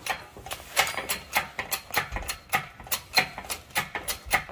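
Irregular sharp metallic clicks and taps, about three or four a second, from hand tools and metal parts being worked on an engine as it is refitted.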